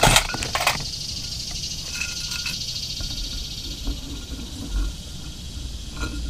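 Steady hiss of a camp cookstove burner, which drops away about three and a half seconds in, with a few sharp clicks of cookware being handled in the first second.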